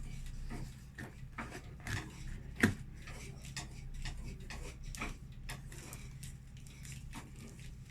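Irregular light knocks and clicks of kitchen handling work, salted lemons and utensils being handled and packed into a container, with one sharper knock about two and a half seconds in.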